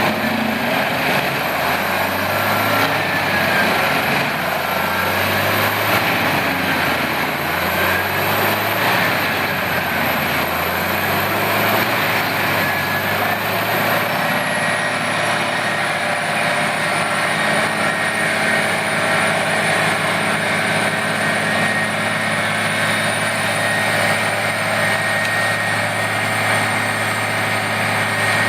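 Large industrial wood chipper running under steady load: a continuous loud engine drone mixed with the noise of chipping, with a faint high whine and no distinct separate bangs.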